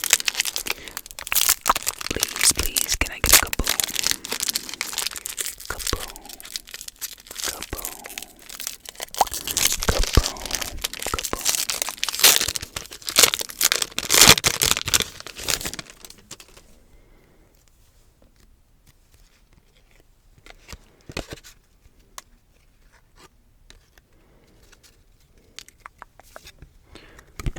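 Plastic wrapper of a football trading-card pack being torn open and crinkled, loud and dense for about sixteen seconds. It then drops to much quieter handling with scattered faint taps.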